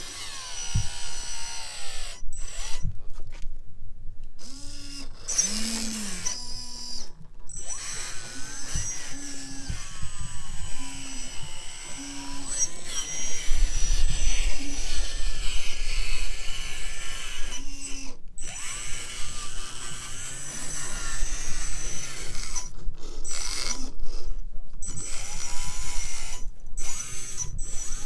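Electric drive motors and gearboxes of radio-controlled scale trial trucks whining as they crawl, rising and falling in pitch with the throttle, with several brief gaps.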